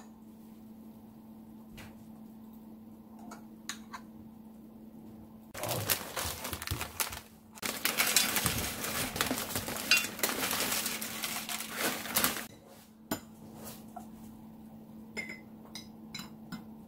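A few light clicks of a metal spoon against a glass jar and bowl, then several seconds of loud crinkling and rattling as tortilla chips are shaken out of a plastic bag onto a steel plate, then a few more light clicks. A faint steady low hum runs underneath.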